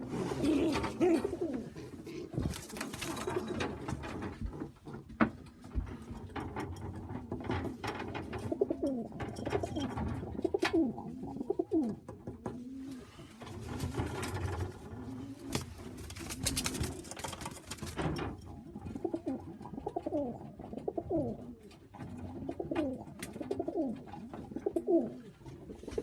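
Racing pigeons cooing repeatedly in a small loft, with a few short bursts of rustling noise between the calls.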